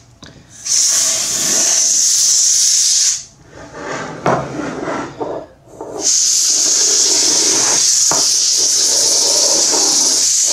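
Insignia canned compressed-gas duster spraying through its red extension straw between laptop keys, blowing out dust: a steady hiss in two bursts, one of about two and a half seconds starting just under a second in, then, after a short pause with light handling noises, a longer one from about six seconds in.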